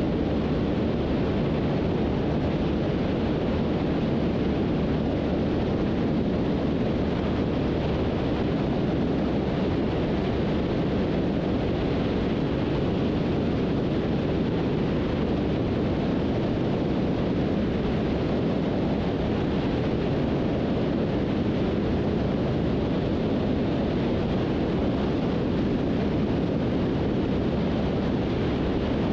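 Beech 18's two radial engines running steadily at takeoff power during the initial climb-out, a constant loud drone.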